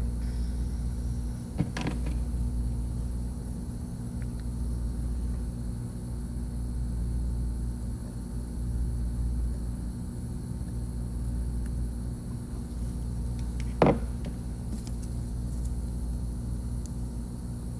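Steady low hum of running bench equipment at a microsoldering station, with two sharp ticks of tools on the board, one about two seconds in and a louder one near the end.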